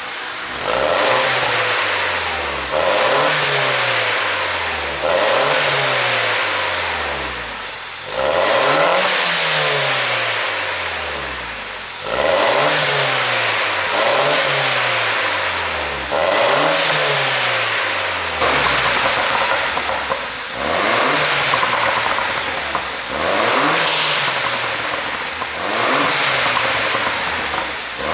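2010 MINI Cooper S R57's turbocharged 1.6-litre four-cylinder revved hard about eleven times through the stock exhaust, each rev rising sharply and then falling back. Pops and crackles come on the overrun as the revs drop, the effect of an ECU pop tune.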